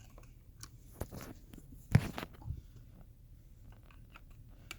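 Small plastic clicks and crinkly handling noise as the power switch and earcup parts of a Bose QC35 headphone are worked by hand, with one sharper knock about two seconds in.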